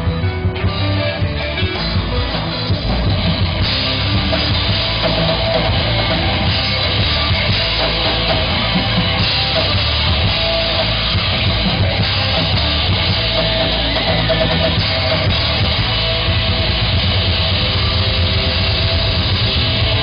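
Live rock band playing: electric guitars, bass guitar and drum kit. About three and a half seconds in, the full band comes in louder and denser.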